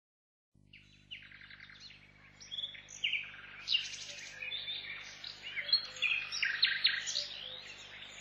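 Many small birds chirping and twittering in quick, overlapping calls, starting about half a second in, over a faint steady low hum.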